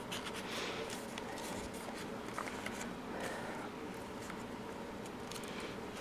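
Faint rustling of paper with a few light ticks as the pages and tags of a handmade junk journal are handled and a page is turned.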